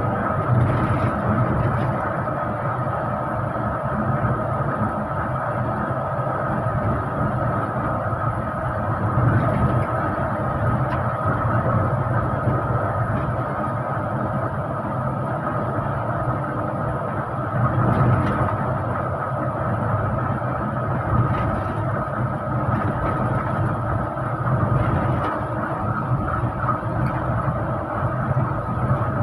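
Intercity bus engine and road noise heard from inside the moving bus: a steady drone with a constant high whine, swelling louder a few times.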